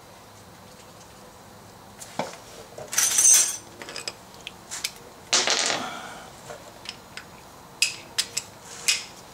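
Metal hand tools clinking and rattling, starting about two seconds in: scattered clinks, two louder rattles about three and five seconds in, then a few sharp clinks near the end.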